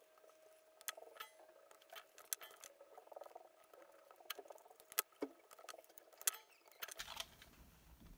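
Faint clicks, taps and rustles of hands handling a small plastic toy RC car chassis and its wires, with about half a dozen sharper clicks.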